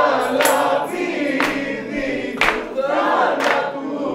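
A group of stage performers singing together in chorus, with a sharp percussive hit about once a second.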